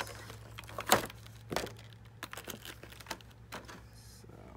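Clear plastic doll packaging being handled: crinkling and sharp plastic clicks and snaps as the doll is worked out of her blister tray, the loudest snap about a second in.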